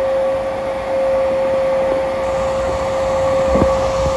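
Steady mechanical drone of an HVAC air handler running, with one constant whine over it. A few light knocks near the end.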